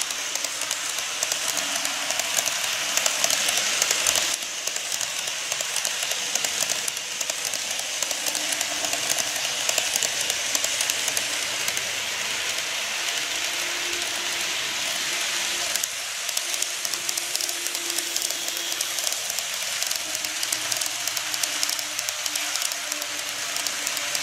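N-gauge model trains (TOMIX 103 series and KATO E231 series) running on the track: a dense, rapid clicking and rattle of the small wheels over the rails and joints, with a faint motor hum.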